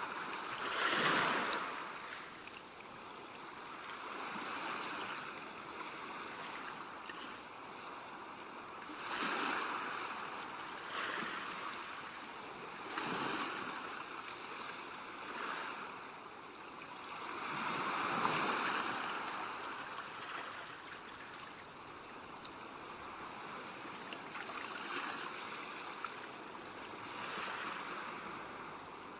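Ocean waves crashing on a shore, a continuous hiss of surf that swells into louder breakers every few seconds, the biggest about a second in and past the middle.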